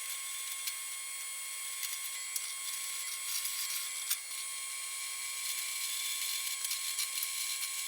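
Drill press running as it bores holes through 1/4-inch steel bar, a steady high whine with a few faint clicks.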